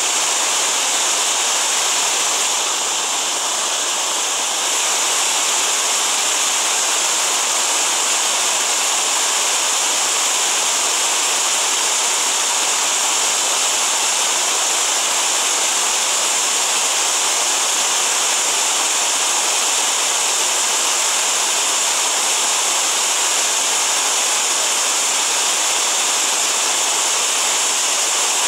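Loud, steady rush of a fast mountain creek tumbling through whitewater around boulders.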